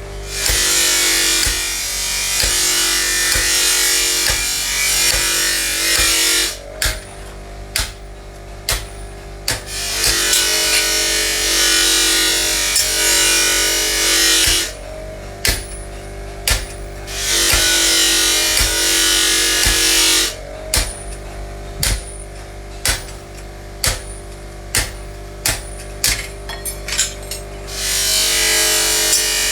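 A small power tool runs in stretches of several seconds at a time, cutting in and out. Between the runs come sharp clicks and knocks, as of metal parts being handled, typical of work on a blowtorch being cleaned up.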